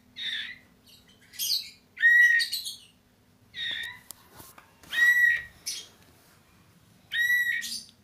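Caged murai songbird giving short calls, about six of them, each about half a second long and a second or two apart.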